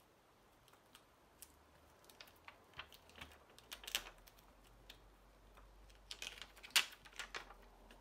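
Faint, scattered clicks and crinkles of a plastic-backed adhesive gasket being handled and pressed onto an iPhone 11's frame with fingers. The clicks come in a cluster about four seconds in, and the loudest come about a second before the end.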